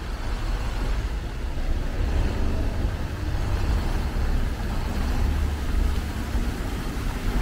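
Water jets of a large stone-basin fountain splashing into the pool: a steady, even rush of water over a strong low rumble.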